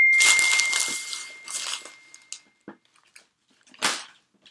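A text-message alert chime ringing out and fading away over the first two seconds, over the rustle of a cardboard box and plastic mailer being handled. A few light clicks follow, and a short sharp crackle near the end.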